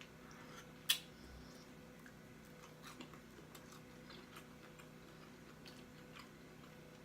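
A person chewing food close to the microphone, with scattered small mouth clicks and lip smacks and one sharper smack about a second in.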